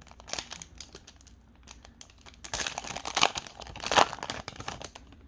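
Foil wrapper of a Pokémon booster pack crinkling and being torn open by hand, a rapid crackle that grows loudest in the second half.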